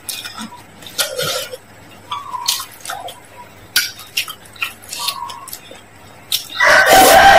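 Chopsticks and a metal spoon clinking against a glass bowl of noodle soup, with scattered short clicks and light rings. Near the end comes a loud, long slurp of noodles.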